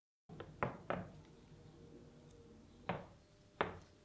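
Four sharp knocks, two close together just under a second in and two more near the end, over a faint steady hum.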